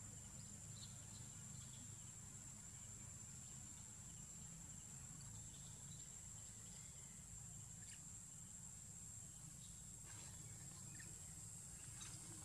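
Near silence: faint outdoor ambience with a steady high-pitched insect drone, a low rumble underneath and a few faint ticks.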